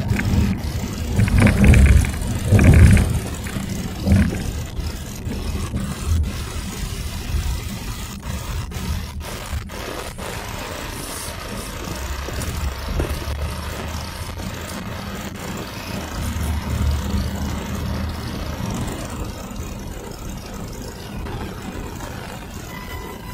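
Car engine and road noise heard from inside a moving car: a steady low rumble, louder for the first few seconds.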